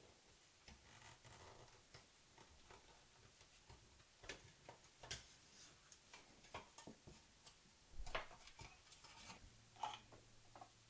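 Faint, scattered clicks and knocks from handling the Apple II's metal power-supply case and lifting its circuit board out during teardown, with the loudest knocks about eight seconds in.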